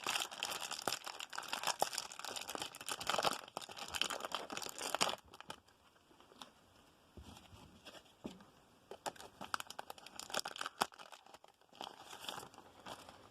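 Plastic wrapper of a baseball card pack crinkling and tearing as it is opened, dense for about the first five seconds. After that come quieter rustles and small clicks of the cards being handled, with more crinkling near the end.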